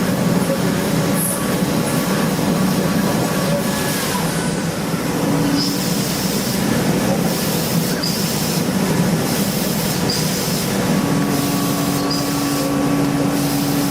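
CNC machine tool running while machining an engine block: steady mechanical machine noise with short high chirps every second or two in the second half, and a steady hum that comes in near the end.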